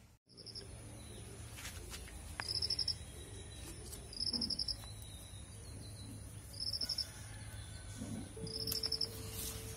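Insects chirping: short pulsed high chirps repeating about every two seconds, over a steady, higher-pitched continuous trill.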